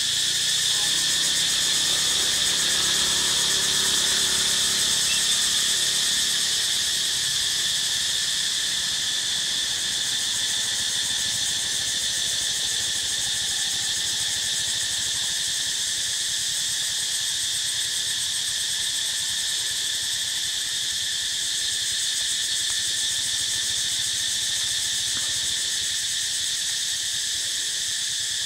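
Steady, high-pitched drone of a forest insect chorus, holding without a break.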